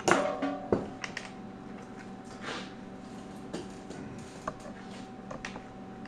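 Scattered light clicks and knocks of tools and metal being handled, with a brief scraping hiss about two and a half seconds in, over a steady hum.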